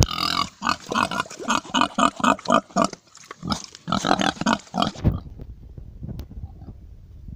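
Pig calling in a quick run of short, pitched calls, about three a second, which stop about five seconds in.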